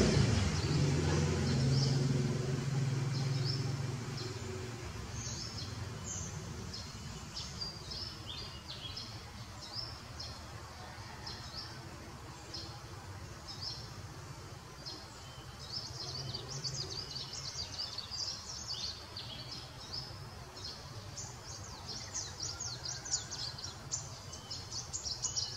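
Small birds chirping in many quick, short calls that grow busier near the end, over steady outdoor background noise. A motor vehicle's engine hum fades away over the first few seconds.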